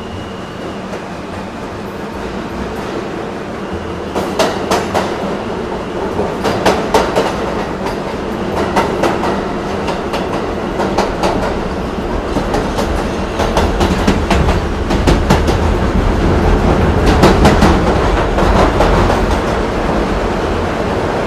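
Bangladesh Railway intercity passenger coaches rolling along the track, with a steady low rumble and the wheels clacking over rail joints in quick, irregular runs.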